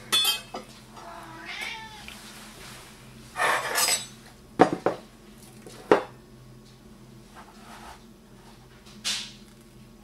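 A man's excited vocal noises in the background, short cries with a sliding pitch, together with knife-on-cutting-board sounds, including two sharp knocks about halfway through.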